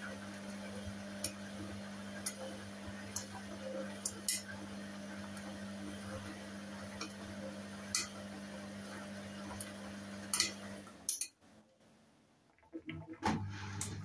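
Hoover H Wash & Dry washer-dryer on its spin cycle: the drum motor hums steadily while sharp clinks sound every second or so. About eleven seconds in the motor cuts out and the machine goes almost silent, then it starts again with a few more clicks and the hum.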